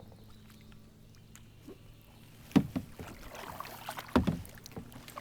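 Kayak paddling: a quiet stretch, then from about two and a half seconds in a few sharp knocks and splashes as the paddle works the water and taps the hull.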